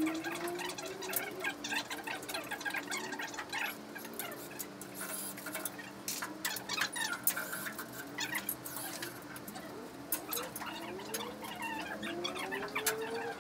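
Scattered metal clinks and knocks as the wire ball-return rails of a pool table are handled and fitted onto its frame. Throughout, short rising, gliding squeaks or warbles recur.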